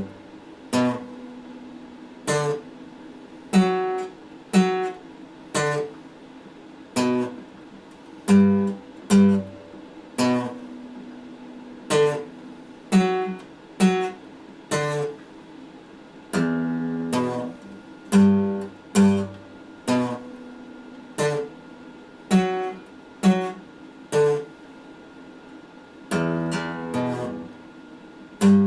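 Epiphone acoustic guitar played slowly: chords struck about once a second, each left to ring out and fade. Twice the strokes come in quicker clusters, the second near the end.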